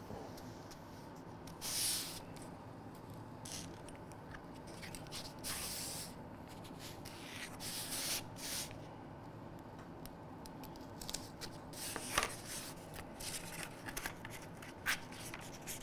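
Scalpel slicing a sheet of Plastazote polyethylene foam along a steel ruler, in a series of short scraping strokes, with pencil scratching on the foam. Near the end come quicker clicks and rubbing as the cut foam liner is handled and pressed into a box.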